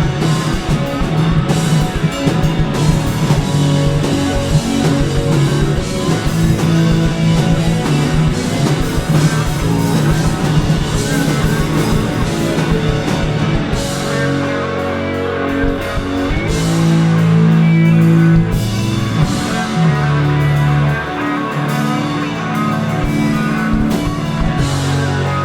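Rock band playing loud, with electric guitars, bass and drum kit. About halfway through, the busy drumming thins out and long, held low notes ring.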